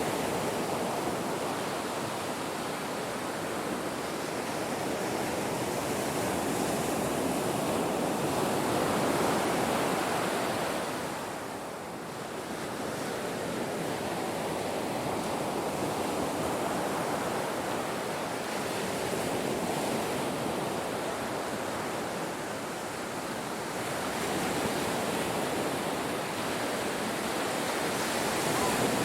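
Ocean waves breaking on a shore: a continuous rush of surf that swells and ebbs, easing off briefly about twelve seconds in before building again.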